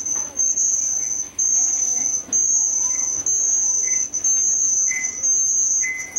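A cricket trilling loudly and steadily at a high pitch, in long trills broken by short gaps about once a second. Faint, lower short chirps repeat about once a second in the second half.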